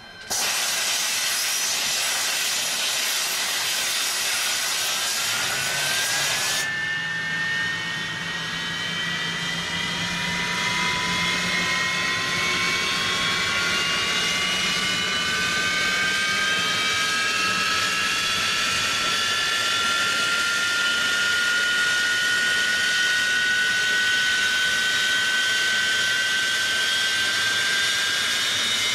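Jet engine running: a loud rushing hiss starts suddenly. About seven seconds in it changes abruptly to a turbine whine of several high tones, rising slowly in pitch over a steady roar of air as the engine spools up.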